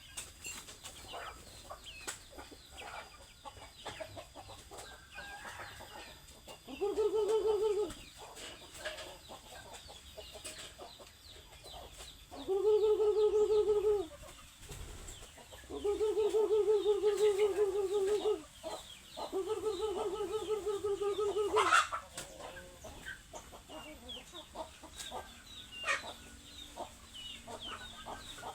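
Hungry chickens clucking and chattering, with four long, drawn-out calls that each last one to two and a half seconds.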